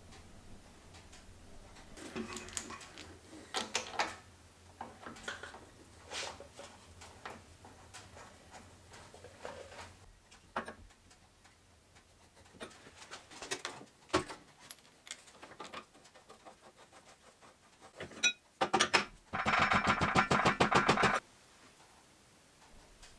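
Metal clinks and scrapes of a spanner working steel hydraulic hose fittings into a hydraulic valve block. Near the end come a few sharp knocks, then a loud, rapid run of clicks lasting about two seconds.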